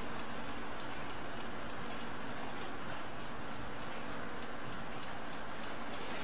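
Mechanical stopclock ticking, a rapid, even tick several times a second.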